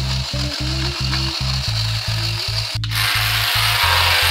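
Background music with a fast, pulsing bass line, over the rasping whir of a small geared electric motor driving a toy car's wheels; the whir cuts out briefly near the three-second mark.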